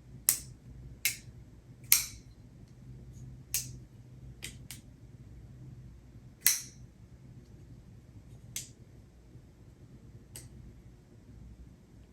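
A Chris Reeve folding knife being worked open and closed by hand: about nine sharp metallic clicks of the blade and lock, spaced unevenly, the loudest about two seconds in and again after six seconds.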